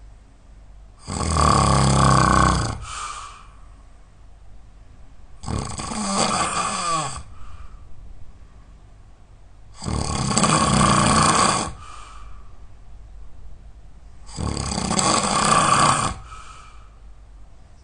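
A person snoring really loud: four long snores, about one every four and a half seconds, each followed by a brief fainter breath-like tail.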